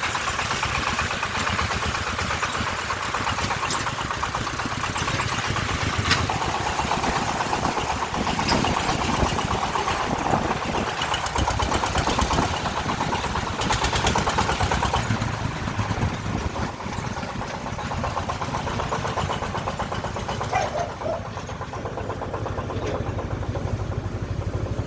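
Diesel engine of a work vehicle running steadily, with a fast even pulsing and a few brief clicks.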